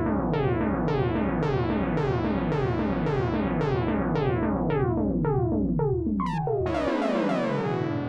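Electronic synthesizer tones, each sliding steeply down in pitch, repeating about two and a half times a second. Near the end a longer, brighter downward sweep takes over.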